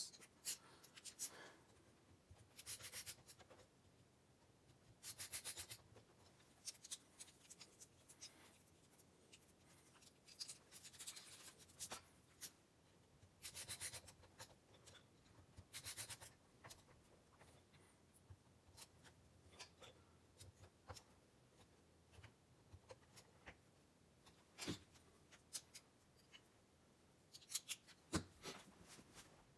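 Faint, scattered clicks, taps and short scraping rustles of hand work on a metal pedal assembly, as pedals, bolts and tools are handled on a workbench. The clicks are sharpest about 25 and 28 seconds in.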